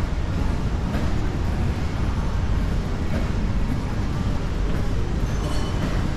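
Steady low background rumble of a large, nearly empty shopping mall hall.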